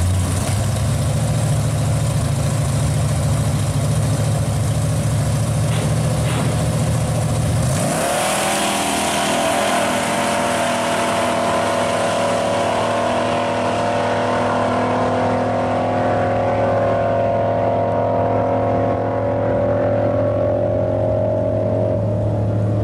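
Drag-race cars, a 1955 Chevy Bel Air and a second car, held at a steady rumble at the starting line, then launching about eight seconds in: the engine pitch climbs sharply and stays high at full throttle as the cars run down the strip, fading with distance and dropping away near the end.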